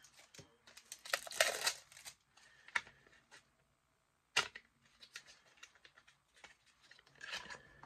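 Product packaging being handled and opened: a burst of rustling and tearing about a second in, then scattered clicks and taps, one sharp click about halfway through.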